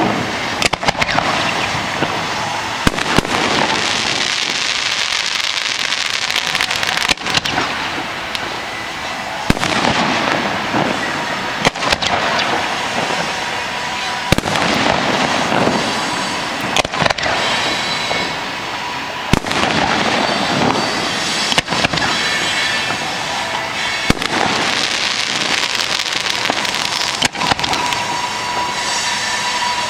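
Aerial fireworks display: shell bursts booming about every two to three seconds, with a steady hiss from rising rockets between the bursts.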